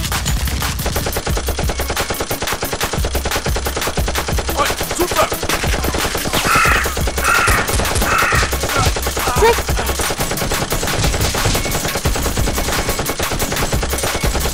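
Rapid automatic gunfire, a continuous run of machine-gun shots with about seven or eight a second, accompanying a Nerf blaster fight. About halfway through, three short harsh cries sound over the shooting.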